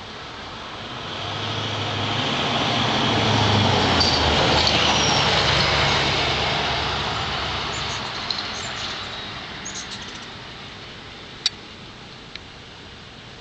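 A road vehicle passing by: its engine hum and road noise swell up over a few seconds, peak, and fade away over the next several seconds. A few faint high chirps and a single sharp click come near the end.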